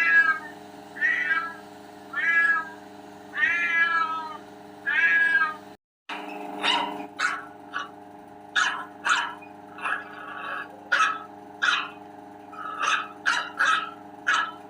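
Cat meowing: five drawn-out meows about a second apart, then, after a sudden cut, a quicker run of short meows over a steady low hum.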